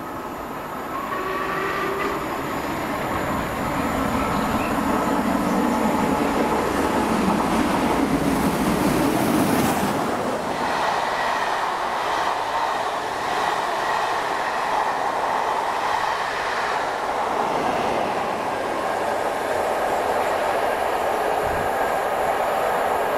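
Steam locomotive hauling a train of coaches past at speed: its exhaust and the wheels running on the rails make a loud, continuous noise, and the sound shifts about ten seconds in.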